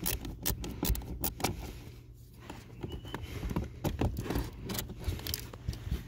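Screwdriver backing out a Phillips screw under a car dashboard: irregular light clicks and rattles of the tool against the screw, plastic trim and wiring harness, easing off briefly about two seconds in.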